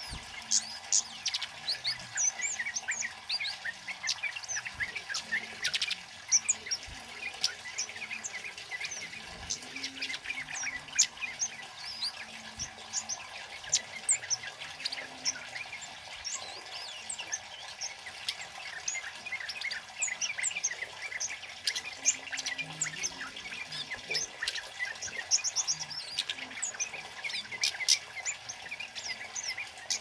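Kemade songbird singing energetically: a continuous, rapid stream of short high chirps and twittering calls, with louder quick runs of notes now and then.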